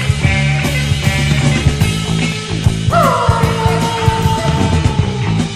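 Rock music with a steady beat. About three seconds in, a high note slides down and is held until near the end.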